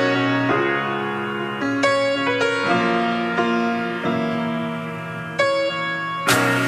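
Background music: slow, sustained melodic notes changing every second or so, with a quicker, more rhythmic part coming in near the end.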